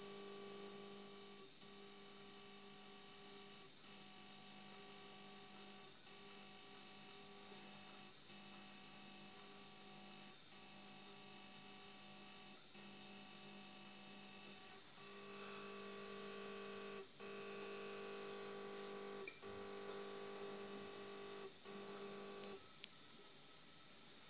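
NEMA 17 stepper motor running with a steady hum of several tones, broken by a brief pause about every two seconds as each counted cycle ends. It gets louder about two-thirds of the way through and stops near the end.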